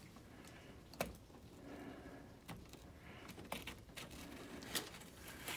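Faint clicks and light scraping of a plastic garage door opener carriage being slid onto its metal rail by hand, with four or five sharp little knocks spread through it.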